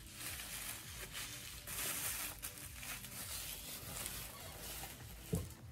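Plastic bubble wrap rustling and crinkling softly as it is pulled off a candle tin by hand.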